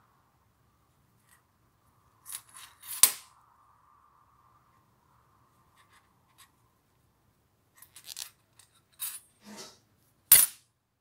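A small metal key clinking and tapping as it is handled on a string: a few sharp clicks, the loudest about three seconds in, then another cluster late on and a sharp clack near the end.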